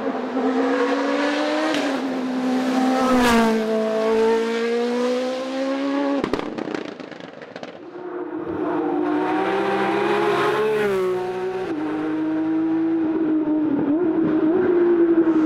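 Race car engine at full throttle, its pitch climbing and dropping with gear changes. About six seconds in there is a sharp crack, then a brief quieter moment before the engine comes back strongly.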